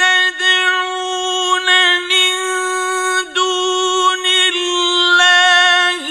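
Male Quran reciter's melodic Arabic recitation: a high voice holding long, steady, drawn-out notes, broken briefly twice by short gliding slurs between syllables.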